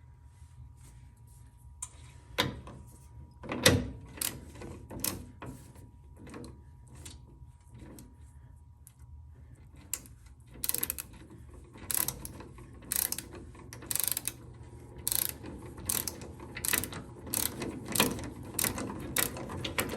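Ratchet wrench clicking as it turns the nut off the steering bellcrank pin. The clicks come in scattered strokes at first, then in a steady run of about two a second from about halfway through.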